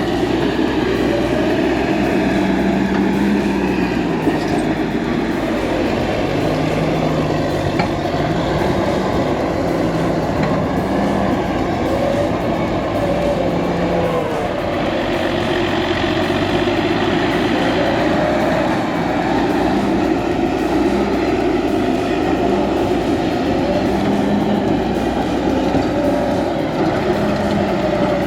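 Caterpillar D8H crawler bulldozer's diesel engine working steadily under load, its pitch rising and falling over and over as it pushes.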